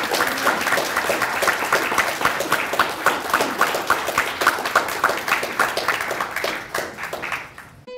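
Audience applauding: a dense patter of many hands clapping that thins and fades over the last second or so, then cuts off, with soft plucked-string music starting right at the end.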